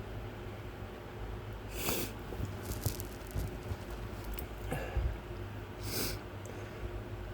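A man with pepper stuck in his nose taking two short, sharp breaths through it, about four seconds apart, with small rustles and clicks between them.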